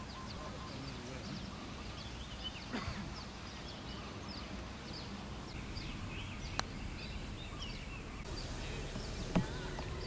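Small birds chirping repeatedly in short, falling calls over an open outdoor background. Three sharp clicks, a putter striking a golf ball on the green, come about a quarter of the way in, past the middle, and near the end.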